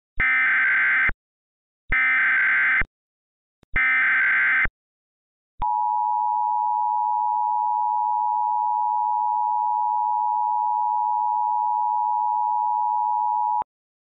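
Emergency Alert System tones: three bursts of SAME header data, each about a second long and a second apart, then the two-tone EAS attention signal held steady for about eight seconds before it cuts off. Together they mark the start of an emergency alert broadcast.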